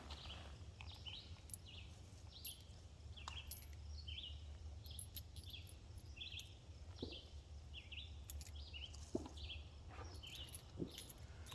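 Birds chirping over and over in short high calls, about two a second, above a steady low rumble, with a few faint knocks near the end.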